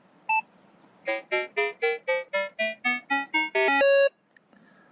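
Minelab Vanquish 440 metal detector beeping under button presses as a setting is stepped up: one short beep, then about a dozen short beeps climbing in pitch and getting louder, ending in a longer steady tone.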